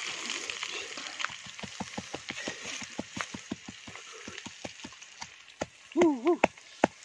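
Pestle pounding in a clay mortar: quick, even knocks at about five a second. A short voice sounds loudly near the end.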